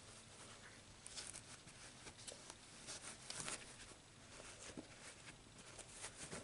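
Faint rustling and scratching of hands handling and pressing a crocheted yarn piece, in short irregular bits.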